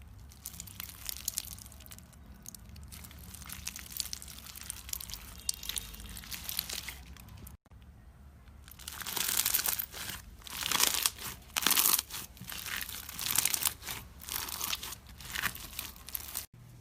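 Slime being pressed and worked by hand, giving a dense crackling and crunching. After a cut a little past halfway, the crackles come louder in bunched bursts.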